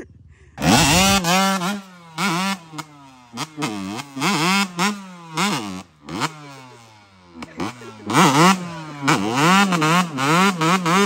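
Dirt bike engine revved hard in repeated throttle blips, its pitch swinging up and down, while the bike spins its rear tyre to roost dirt. It comes in about half a second in and drops off briefly twice in the middle.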